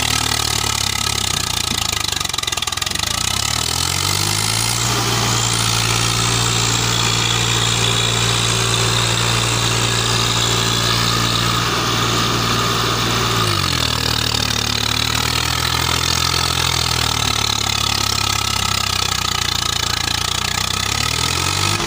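Swaraj 855 FE tractor's three-cylinder diesel engine working under load in deep mud. The revs climb a few seconds in, hold high and steady for about ten seconds, drop back, then rise again near the end.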